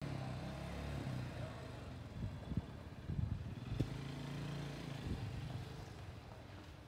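A vehicle engine running, a steady low hum, with a few sharp knocks near the middle.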